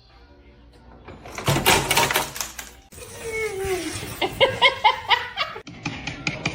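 Mixed sounds: a stretch of loud rustling, then a person laughing, then fast, even knocking at about six strokes a second.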